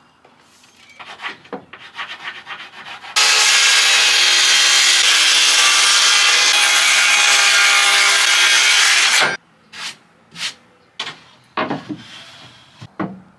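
A power tool running at a steady speed on wood for about six seconds, starting and cutting off suddenly. Scraping and knocks of wood being handled come before and after it.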